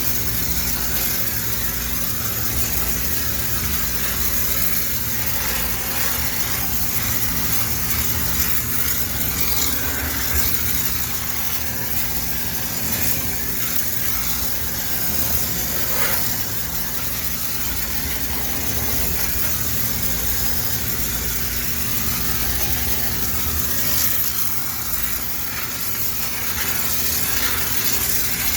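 High-pressure steam cleaner running steadily, a low motor hum under a continuous hiss of steam, with a few faint clicks.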